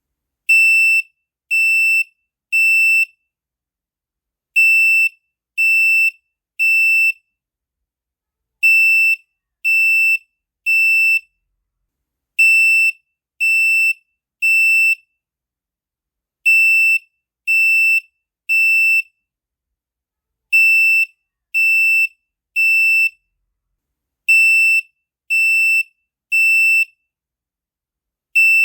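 Chung Mei residential fire alarm sounding its high-pitched electronic beep in the temporal-three evacuation pattern: three beeps of about half a second each, then a pause of about a second and a half, repeated seven times.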